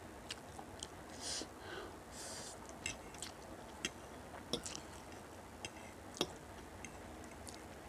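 Close-up mouth sounds of eating spicy instant noodles: two short slurps, about a second in and again around two seconds, then wet chewing with scattered sharp clicks and smacks.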